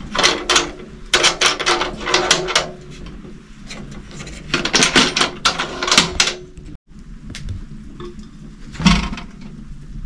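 Stainless-steel Paromag Lux autoclave being opened: its screw clamps are loosened and swung aside, and the lid comes off, in several bursts of metal clicking and clanking.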